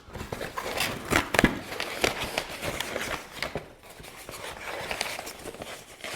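Shipping packaging being torn open and crinkled to unwrap a book: irregular rustling with sharp crackles and rips, pausing briefly a little past halfway.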